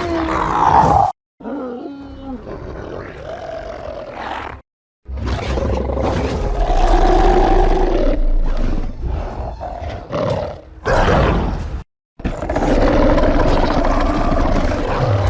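Film sound-effect calls of the Wartdog, a fictional monster creature: about four separate clips of loud, shifting animal-like calls, each cut off abruptly by a brief gap of silence.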